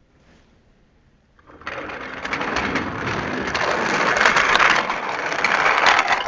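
Toy trains and wooden track pieces clattering and rattling: a dense run of small clicks and knocks that starts about a second and a half in and grows louder.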